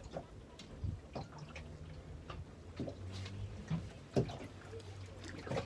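Water dripping and slapping around a small fishing boat, with scattered light knocks and clicks and a faint low hum underneath.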